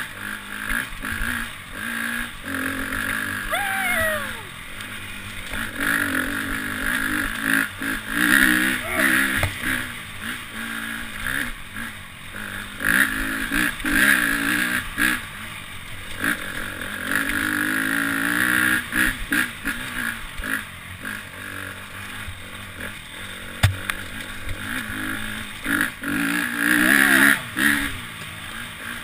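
Dirt bike engine revving up and down with the throttle as it is ridden over rocky singletrack, heard from a helmet-mounted camera. A single sharp knock about two-thirds of the way in.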